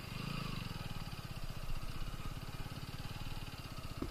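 Single-cylinder motorcycle engine running at steady low revs, an even, unbroken beat.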